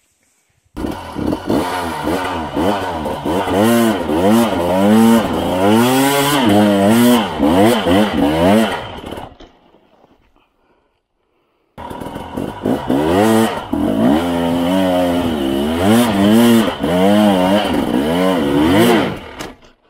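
Husqvarna TE 300i two-stroke enduro motorcycle engine being ridden over rocky ground, the throttle opened and closed over and over so the revs rise and fall constantly. It runs in two spells with a sudden silent break of about two seconds between them.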